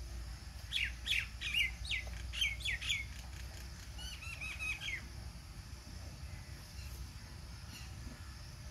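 A bird calling: a quick run of about eight sharp, falling notes in the first three seconds, then a shorter, lower chatter about four seconds in, over a low steady rumble.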